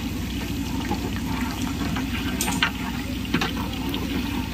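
Chillies and bay leaves sizzling in hot oil in a large aluminium cooking pot, with a few short scrapes of a long steel stirring rod against the pot in the second half, over a steady low hum.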